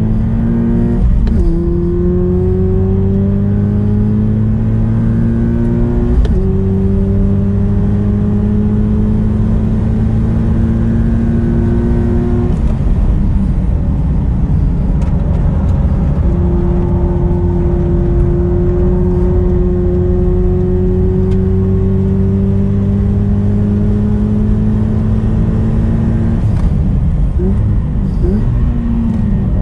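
Subaru BRZ's flat-four engine through an aftermarket single-exit muffler, heard from the cockpit under hard acceleration on track: the pitch climbs steadily, drops with upshifts about one and six seconds in, and keeps rising until about twelve seconds. The car then comes off the throttle for a few seconds, pulls hard again in one long rise until about 26 seconds, and ends with quick throttle blips on downshifts.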